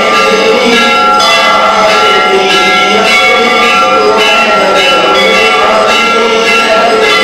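Temple bells ringing steadily, many overlapping strokes blending into one continuous loud ringing.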